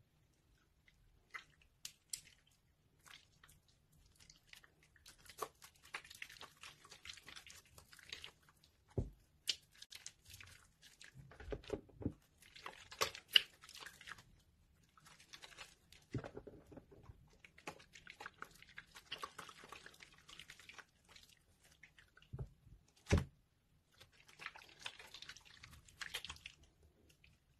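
Wet bars of soaked soap and soft soap mush squished and kneaded by hand in a basin of water: irregular wet squelching and crackling lather with scattered clicks. There are a few sharper knocks along the way.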